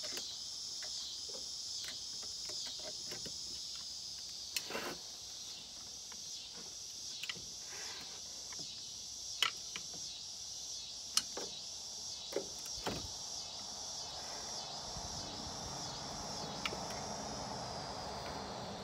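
Pliers clicking and scraping on the brass air-inlet fitting of an air-hydraulic pump as it is tightened, with scattered sharp metal clicks, half a dozen of them louder. Insects trill steadily and rhythmically in the background throughout.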